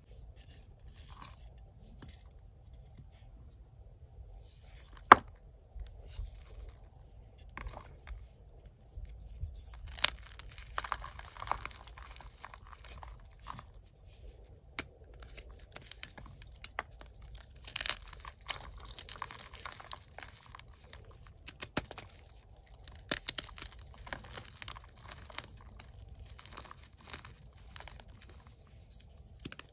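Soft gym chalk blocks being broken up and crushed by hand: one sharp crack about five seconds in, then repeated soft crunching and crumbling as chunks are squeezed into powder.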